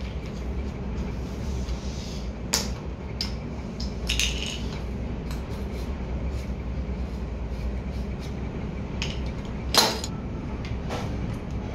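Hand tools clinking against small steel pump parts as locking pliers and a steel rod work a bearing and shaft: a few sharp metallic clinks, the loudest about ten seconds in, over a steady low hum.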